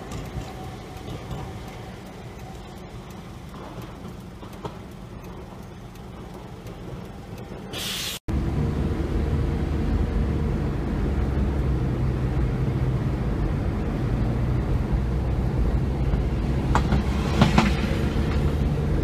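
Faint street traffic noise, then after a sudden cut a louder, steady low rumble of riding in a moving road vehicle, heard from inside. A few brief clicks come near the end.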